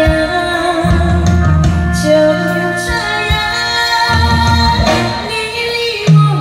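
A woman singing a slow, lyrical Chinese-language ballad through a microphone and PA, holding and gliding between long notes over amplified backing music with bass and drums.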